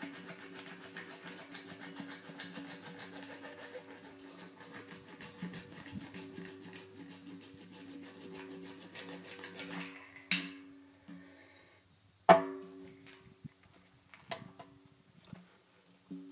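Hand tire-patch stitcher rolled back and forth over a newly glued patch on the inside of a tire, a fast rasping clicking that stops about ten seconds in. Then two sharp knocks about two seconds apart, and a smaller one later.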